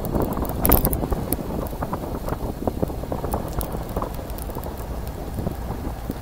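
Wind buffeting the microphone of a camera carried on a moving bicycle, a steady low rumble with scattered clicks and rattles; a louder knock comes just under a second in.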